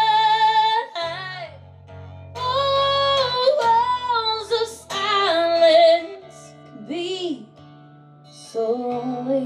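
A woman singing several long, wavering notes over an acoustic guitar, with short gaps between the phrases.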